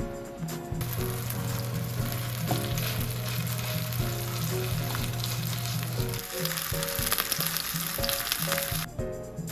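Food sizzling in a hot frying pan, starting about a second in and cutting off abruptly near the end, over background music.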